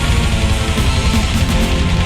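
Orchestral-symphonic black metal music, loud and dense, led by strummed electric guitars.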